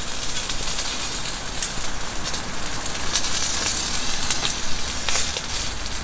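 Chicken sizzling on a small griddle plate over a SOTO ST-320 single-burner gas stove: a steady hiss with scattered small pops of fat, over the low steady sound of the burner flame.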